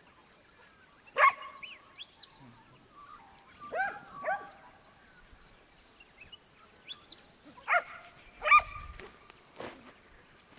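A dog barking: about six short, sharp barks, mostly in pairs a fraction of a second apart, with small birds chirping faintly between them.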